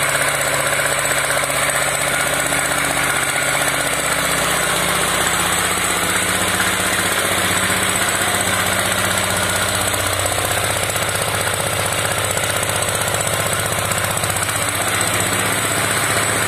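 Kisankraft single-cylinder petrol engine running steadily, belt-driving the vacuum pump of a single-bucket milking machine, with the pump's steady hiss over it.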